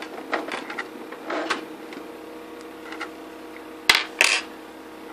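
Scattered mechanical clicks and rattles from handling a computer's DVD drive, then two sharp knocks close together about four seconds in, over a steady hum.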